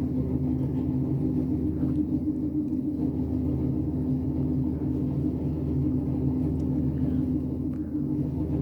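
Cab of a 2002 FI-VF3 high-speed elevator (180 m/min) travelling in its shaft: a steady low rumble with a constant hum, heard from inside the car.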